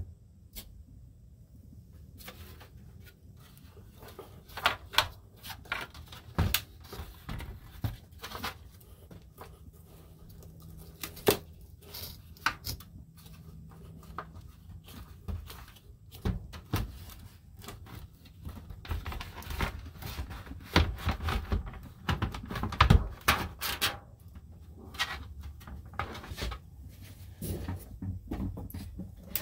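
Hands handling a plastic RV roof vent fan housing and the camera: irregular clicks, knocks and rubbing, several sharp knocks louder than the rest, over a low steady hum.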